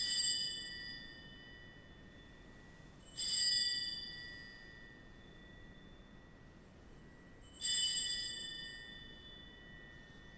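Altar bells (sanctus bells) rung three times, each ring dying away over a second or two. They mark the consecration of the wine in the Eucharist.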